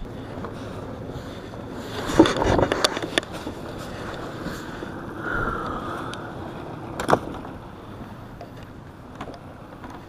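Boat's outboard motor running steadily, with several sharp knocks and bumps, the loudest about two seconds in and again about seven seconds in.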